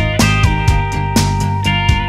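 Background music with held melody notes over a steady beat of about two strokes a second.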